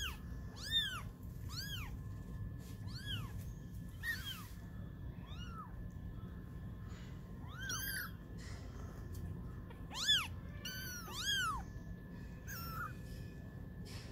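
Kittens about 20 days old mewing: about a dozen short, high-pitched calls that each rise and fall in pitch, some overlapping. The loudest come just under a second in and again around ten seconds in.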